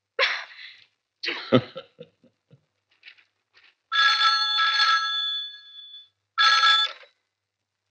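Telephone ringing twice: a ring of about two seconds, then after a short gap a second, shorter ring.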